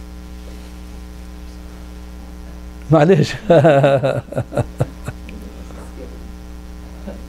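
Steady electrical mains hum. About three seconds in, a man speaks a word and laughs for a couple of seconds, then the hum continues alone.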